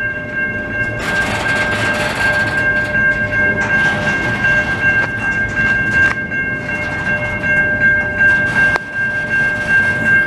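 CN double-stack intermodal freight train rolling through a level crossing: a steady rumble of cars and wheels on the rails, with a couple of sharp clanks, one about six seconds in and one near nine. Over it runs the steady ringing tone of the crossing's warning signal.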